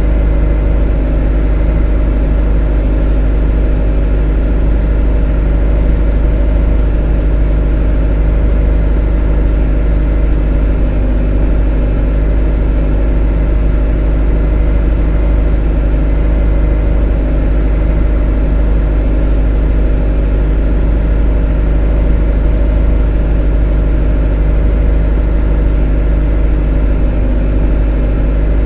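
A motor running at a constant speed: a deep, even drone with a steady hum of overtones and no change in pitch or level.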